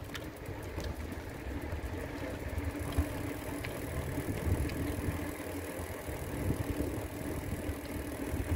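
Bicycle riding along a paved bike path: a steady low rumble of tyres and wind on the microphone, with a few light clicks and rattles.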